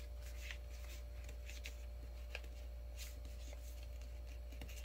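Sheet of paper being folded and creased by hand on a table: faint, scattered crinkles and rustles as the fingers press the fold. A faint steady hum sits underneath.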